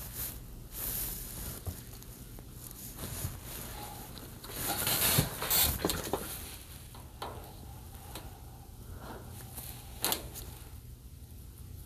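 Hands working on the TV's internal boards and cables: scattered rustling and small clicks, busiest around the middle, with one sharp click about ten seconds in, over a faint low hum.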